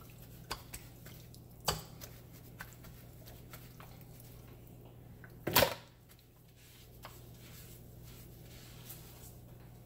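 Scattered light knocks and clicks from handling raw chicken and a knife on a wooden cutting board, with one louder thump about five and a half seconds in. A low steady hum runs underneath.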